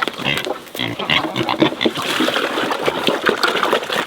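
Pigs grunting, a dense run of short, irregular sounds.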